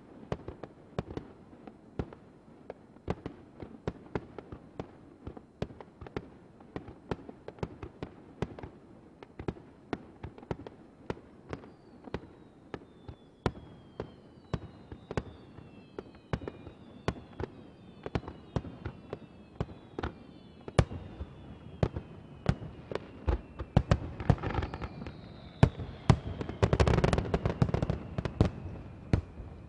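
Aerial fireworks shells bursting in a rapid, irregular run of sharp bangs. From about halfway through, several whistles falling in pitch join them, and near the end the bangs build to a dense, loudest stretch.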